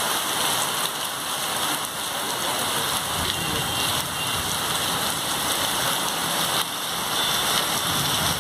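Torrential rain pouring down steadily, a dense even hiss of a heavy downpour.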